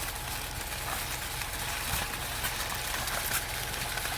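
Steady low drone of a concrete truck's diesel engine running, with an even hiss over it.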